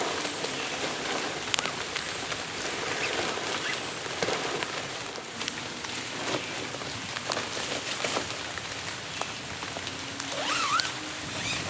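Steady heavy rain, with many separate drops striking nearby surfaces as sharp ticks over the hiss of the downpour.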